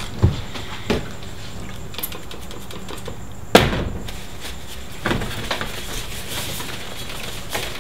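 Handling noises: a few knocks as a spray cleaner and rag are fetched and set down, then a cloth rubbing over a glass whisky bottle as it is polished.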